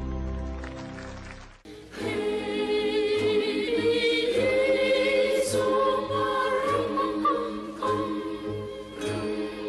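Background music: soft instrumental notes break off sharply and a choir starts singing about two seconds in, over a steady low beat.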